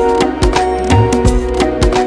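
Background music with a steady percussive beat and plucked pitched notes.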